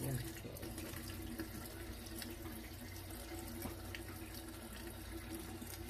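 Tap water running steadily at a sink while an air conditioner filter is washed under it, with a faint steady hum underneath and a few light clicks.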